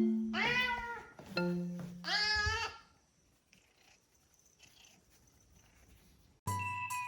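A house cat meowing twice, about two seconds apart, each meow a short call that bends in pitch, over light background music with mallet-like notes. The music drops away after the meows and comes back with chimes near the end.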